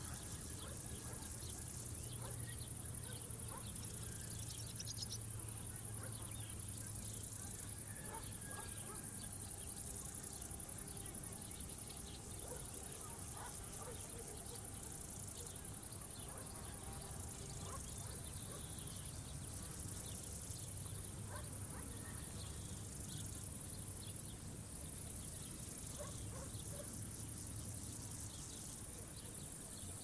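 Insects chirring in a field: a high, continuous buzz that swells and dips every couple of seconds, with a faint low hum underneath.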